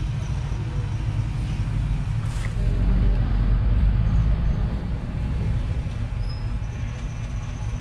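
Low rumble of a motor vehicle engine running close by, swelling about two and a half seconds in and easing off after about five seconds.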